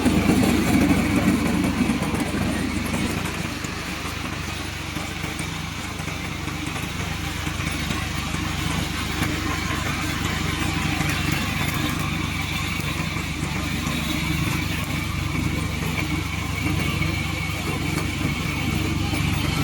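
Single-cylinder Loncin 224cc gasoline engine of a remote-controlled lawn mower running steadily at a constant speed, a little louder for the first couple of seconds.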